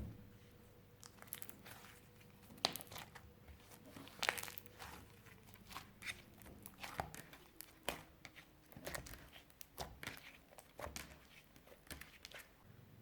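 Hands kneading and stretching clear slime with eyeshadow mixed in, giving irregular sticky crackles and pops, the sharpest about two and a half and four seconds in.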